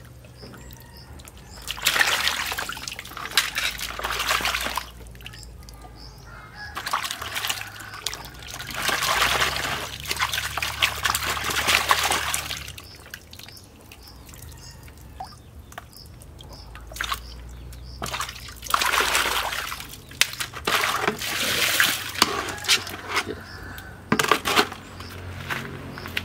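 Water splashing and sloshing in a plastic basin as snakes are washed by hand, in several spells of a few seconds each with quieter gaps between.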